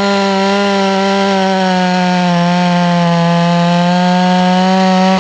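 Oleo-Mac 952 two-stroke chainsaw (51.7 cc) running at full throttle while cutting into a wooden stump, its high engine note holding steady under load, dipping slightly about halfway through.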